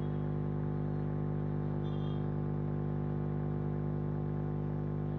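A steady buzzing hum with many even overtones, unchanging in pitch and level.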